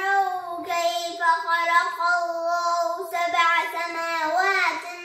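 A young boy chanting Qur'an verses in a melodic recitation, one voice holding long, drawn-out notes that slide in pitch.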